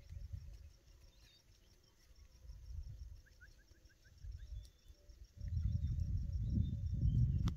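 Insects chirping in a steady, rapid pulse, with a low rumble underneath that grows much louder a little past halfway.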